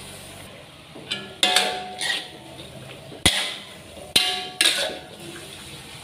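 Metal spatula clanking and scraping against a wok while stir-frying cabbage: about half a dozen sharp clanks, some ringing briefly.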